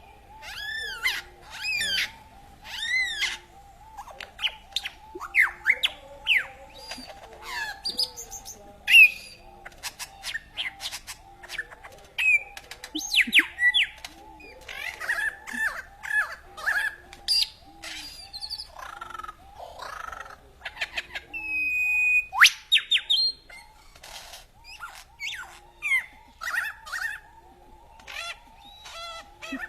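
A songbird singing a long, varied song of quick chirps, whistles, sweeping glides and trills, with a steady drone underneath.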